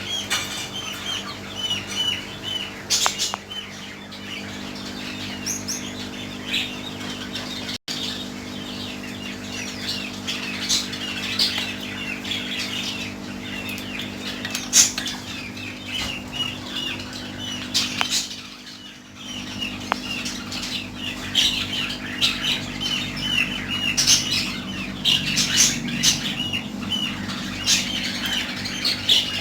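Many caged birds chirping and calling: quick runs of short high chirps, with sharp squawk-like calls scattered through, over a steady low hum.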